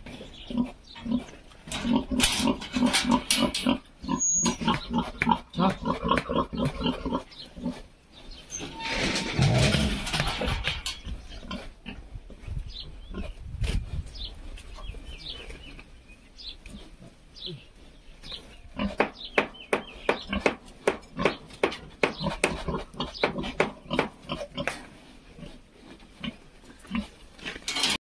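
Domestic pigs grunting in quick rhythmic runs, with a louder, harsher outburst about nine seconds in.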